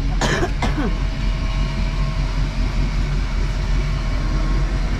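Motorboat engine running steadily at low speed as the boat is steered out through a channel, with a brief louder sound with a falling pitch near the start.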